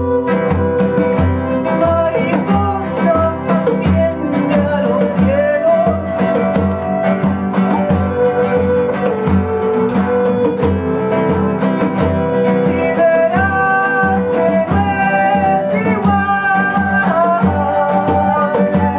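Progressive electronic dance music: a steady kick drum about twice a second under sustained, string-like melodic lines.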